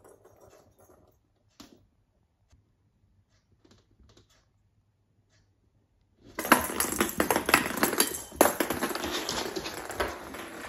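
A cat playing football with a small ball on a wooden floor: a few faint ticks at first, then about six seconds in a sudden loud, dense clatter of clicks and knocks as paws scrabble and the ball skitters across the floor.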